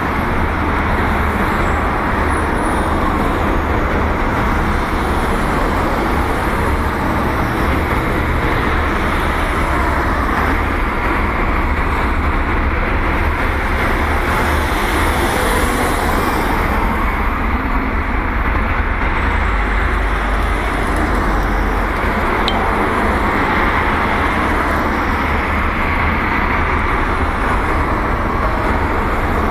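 Steady, even outdoor background rumble with no single event standing out.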